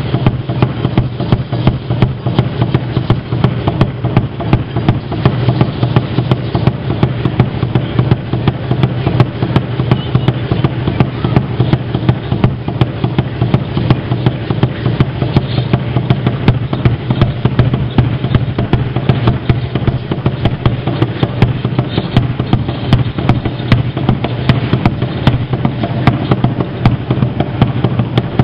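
Chachayote seed-shell ankle rattles (ayoyotes) clattering continuously as dancers stamp and step, a dense, fast rattling with no pause.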